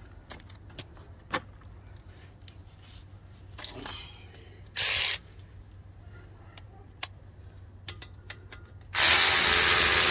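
Scattered light clicks and taps of hand tools on metal, a short hiss about halfway, then a pneumatic ratchet runs steadily for about two seconds near the end, turning a 17 mm bolt on the brake assembly.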